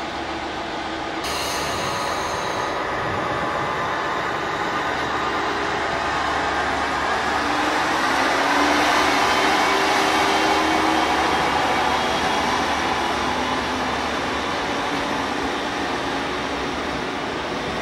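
Red diesel multiple-unit train running past close by along a platform, engine and wheels on rail, loudest about eight to ten seconds in, then slowly fading as it pulls away.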